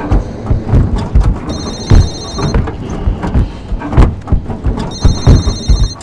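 A telephone rings twice, each ring about a second long, over loud, dense low rumbling and thudding; the whole mix cuts off abruptly at the end.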